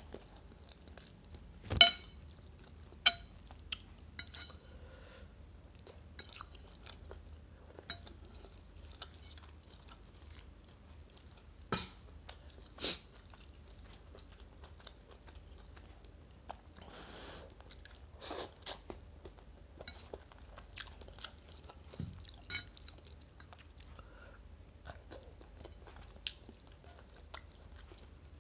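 Close-miked chewing and biting of rice vermicelli soup with shredded chicken, with scattered sharp clicks of eating utensils and a single louder clink about two seconds in.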